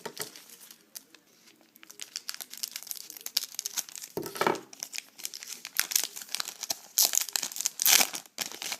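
Trading card pack wrapper being torn open and crinkled by hand: a run of irregular crackles, with louder rips about four seconds in and again near the end.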